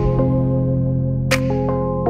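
Background music: sustained synthesizer chords with a single light percussive tick about a second in.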